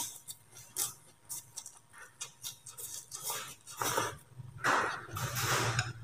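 A person eating vermicelli noodles: a short slurp, then chewing with a run of quick wet mouth clicks and smacks. Two or three breathy puffs come near the end.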